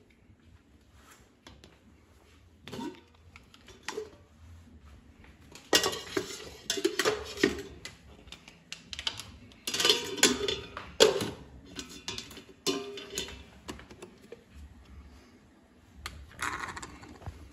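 Kitchen clatter: irregular knocks and clinks of dishes, containers and utensils being handled on a countertop, in several clusters, with the busiest stretches in the middle and near the end.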